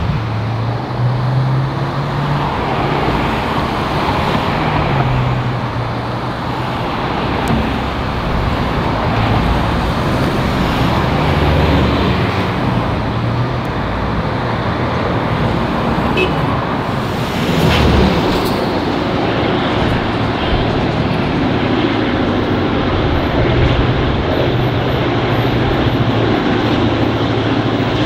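Clyde-built EMD diesel locomotives X31, B76 and B80 running as they approach at the head of a freight train: a steady rumble with an engine hum that shifts slightly in pitch.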